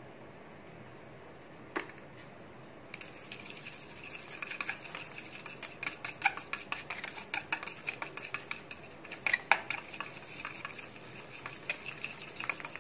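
Eggs being beaten with a metal utensil in a steel bowl: one clink about two seconds in, then, from about three seconds in, rapid, irregular clinking and scraping of metal on metal.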